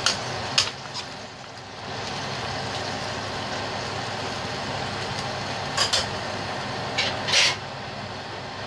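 Chicken cooking in water in a stainless steel wok on the heat, with a steady hiss as it comes to the boil. A metal spatula scrapes and knocks against the wok a few times, at the start and again in a cluster near the end.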